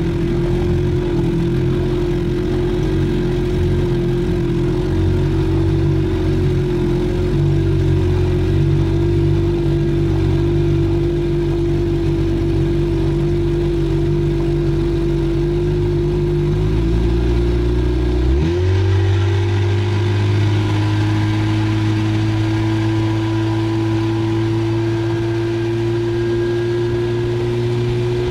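Boat's outboard motor running steadily under way. About two-thirds of the way through, its pitch shifts and then rises sharply as the throttle is opened, and it keeps climbing slowly after that.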